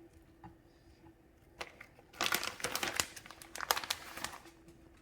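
Plastic bag of shredded sharp cheddar cheese crinkling as the cheese is shaken out over a casserole. A run of rustling starts about one and a half seconds in and stops near the end.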